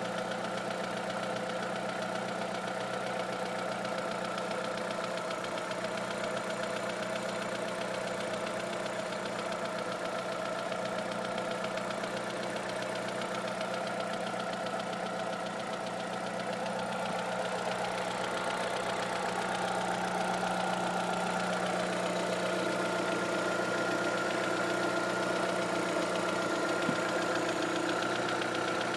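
Vauxhall/Opel Astra engine running with a rapid tapping from the engine, a noise the owner cannot explain; he says it taps faster as the revs rise and goes away above 2000 rpm. The engine note rises a little and gets slightly louder about two-thirds of the way through.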